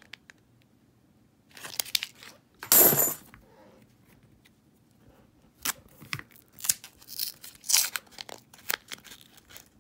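Paper wrapper of a roll of half dollars being torn open, the loudest tear about three seconds in, followed by a run of sharp clicks from about six seconds in.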